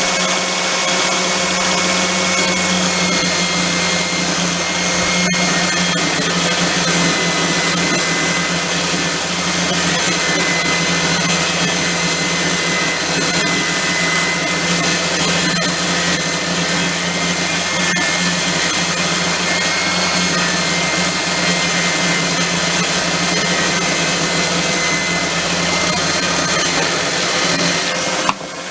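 Homemade table saw, a circular saw mounted under the table, running with a steady motor whine while ripping a length of timber. It stops near the end.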